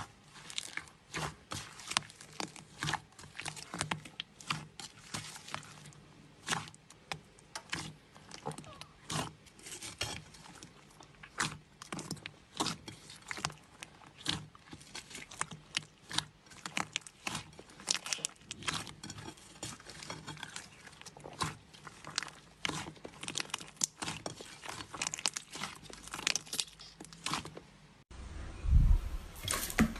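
Slime being pressed and worked by hand, giving a fast, irregular stream of small sticky clicks and crackles. About two seconds before the end it cuts to a louder, squelchier handling sound.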